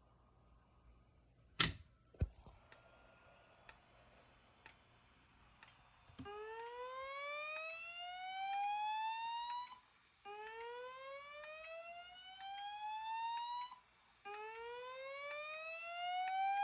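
Fire-alarm voice-evacuation speakers sounding the slow-whoop tone: three slow rising sweeps, each about three and a half seconds long, with short gaps between them. This is the alert tone that comes before the spoken evacuation message. About a second and a half in, before the tone starts, there is a sharp click, then a smaller one just after.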